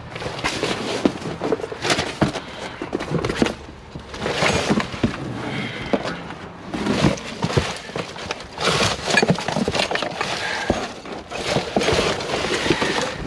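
Rummaging through scrap and debris by hand: irregular clattering, scraping and rustling of loose pieces of metal and junk.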